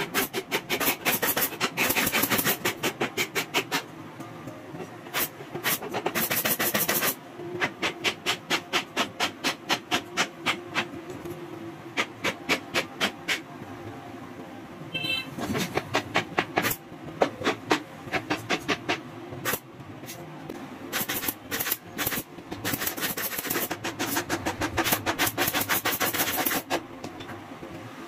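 Pneumatic upholstery staple gun firing in rapid runs, about five sharp snaps a second, in bursts of a few seconds with short pauses between them, over a steady background hum.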